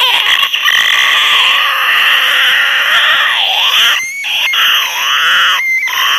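A person's loud, harsh, drawn-out screeching, rough and croaky, with the pitch swooping down and back up a couple of times and two brief breaks for breath.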